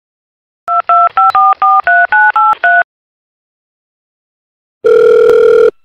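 Mobile phone keypad touch-tones: about ten quick two-note dialing beeps as a phone number is entered, then after a pause one longer, lower steady tone, the call ringing on the line.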